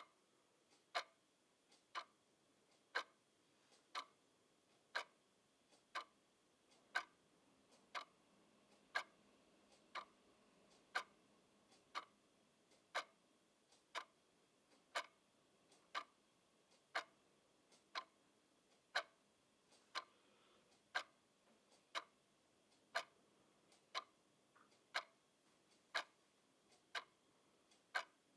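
Clock ticking steadily, about one sharp tick a second, with a fainter click between some of the ticks.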